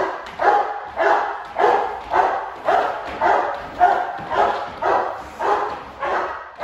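Great Dane barking steadily and loudly, about two barks a second, in a long unbroken run. It is guard barking at a decoy during protection work.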